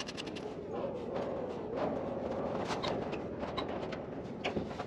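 Light clicks and taps of small hardware being fitted by hand against the baler's sheet-metal panel, over a low hoot that wavers up and down about once a second.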